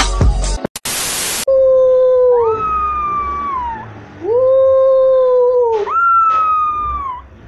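A black-and-tan puppy howls three long howls, each holding a steady pitch and dropping away at its end. It opens with the last moment of background music and about a second of loud static hiss.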